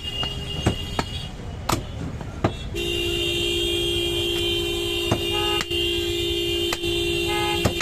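Sharp chopping knocks of a butcher's cleaver on meat and bone, irregular throughout; about a third of the way in a vehicle horn starts and is held steadily on one note to the end.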